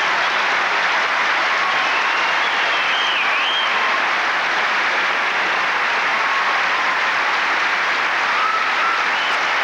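A large stadium crowd applauding the new champion holding the trophy, in a steady, dense wash of clapping, with a few faint whistles over it, one wavering about three seconds in.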